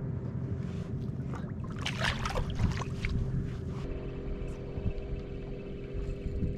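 Boat on the water: a steady low rumble with a steady hum, and a short burst of noise about two seconds in.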